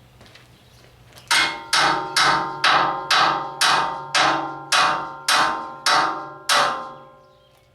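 Hammer striking a steel pallet fork eleven times, about two blows a second, each blow ringing out with a bright metallic tone; the blows start about a second in and stop near the end.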